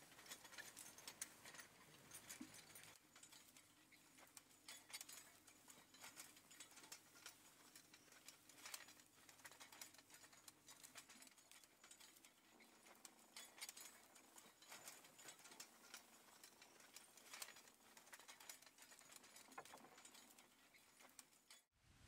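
Near silence: faint field ambience with scattered light clicks and rustles, and a faint low hum in the first half.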